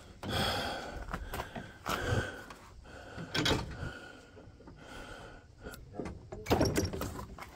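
A scattered run of knocks, clicks and rattles as a compact tractor's three-point hitch position lever is worked to lower the hitch carrying a removable rear weight block, the loudest knocks near the end.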